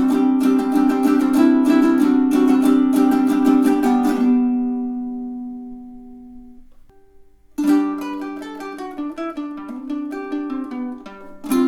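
Magic Fluke M20 tenor ukulele in re-entrant baritone tuning (dGBE with a high D) being strummed. A chord rings out and fades away a few seconds in. After a short pause, playing starts again with quicker notes and another strum near the end.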